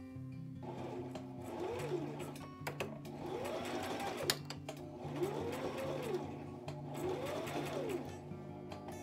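Home electric sewing machine stitching through fabric, starting about half a second in, its motor speeding up and slowing down in several spurts as the pedal is pressed and eased, with background music underneath.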